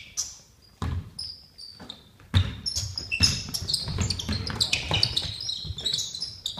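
Basketball play on a hardwood gym floor: a ball bouncing and sneakers squeaking, with a few separate thuds at first and then a busy, louder run of bounces and squeaks from about two and a half seconds in.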